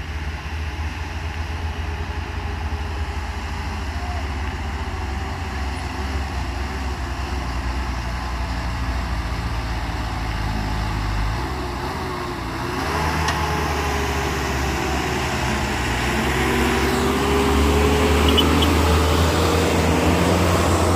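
Heavy truck's diesel engine running, steady at first, then growing louder with its note rising and falling as the revs change in the last third.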